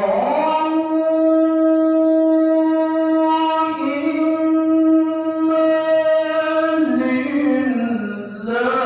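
A man reciting Quran verses in the melodic tilawah style: one long held phrase that wavers and then slides downward near the end, breaking briefly before the next phrase begins.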